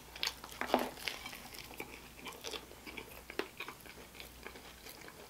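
A person chewing a mouthful of chopped cheese sandwich close to the microphone: quiet, irregular wet mouth clicks and smacks.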